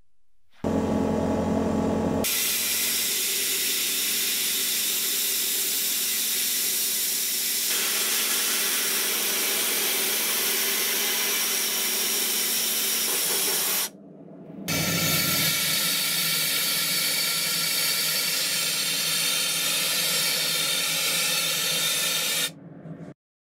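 Steady hiss of compressed air driving a spray gun over small steel brackets. It breaks off for a moment about two-thirds of the way through, then the hiss resumes from a powder-coating gun blowing powder paint onto the brackets, and stops shortly before the end.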